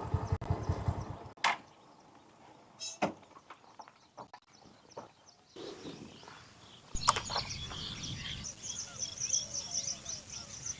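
A motorcycle engine running, stopping about a second in, followed by a quiet stretch with a few sharp clicks. From about seven seconds in, a low outdoor rumble with many short high chirps.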